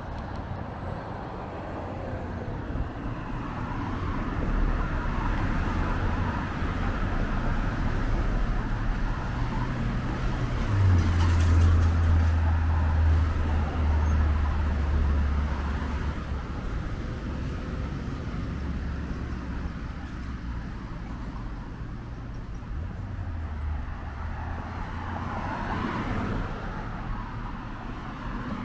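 Road traffic passing on a city street. A vehicle's low engine hum grows loudest about eleven seconds in and fades over the next several seconds.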